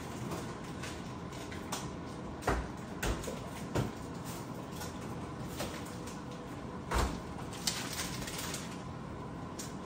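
Quail eggs frying in a pan with a steady sizzling hiss, broken by several sharp knocks and clatters of kitchen items, the loudest about two and a half and seven seconds in.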